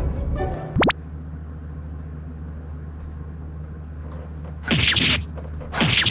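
Background music ending with a rising sweep about a second in, then a low steady hum. Near the end, two short rustling crunches about a second apart as feet push into a deep pile of popcorn.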